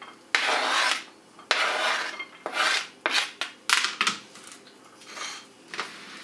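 Kitchen knife blade scraping diced carrot across a plastic cutting board onto a plate, in three long scraping strokes, followed by a few clicks and knocks as the board and knife are set down.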